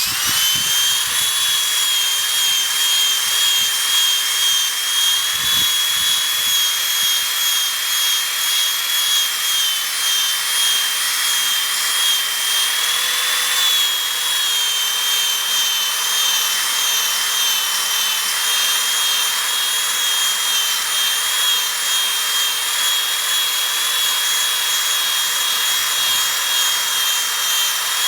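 Powerball polishing buffer on a power drill spinning steadily against an acrylic boat nameplate, a continuous high-pitched whine that wavers slightly in pitch as it is worked with polish and water.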